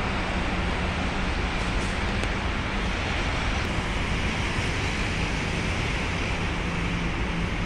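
Steady rumble of traffic, even throughout, with a faint low hum underneath.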